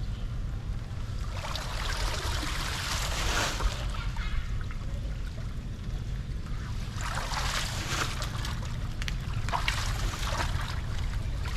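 Flooded water draining and splashing, over a steady low rumble, with three louder splashing bursts through the stretch.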